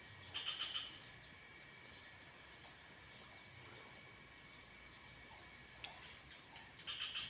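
Steady high-pitched drone of insects such as crickets in streamside vegetation, with brief chirps about half a second in and again near the end.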